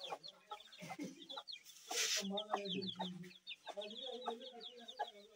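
Young chicks peeping steadily in rapid high, falling chirps, with their mother hen clucking low among them. A short hiss sounds about two seconds in.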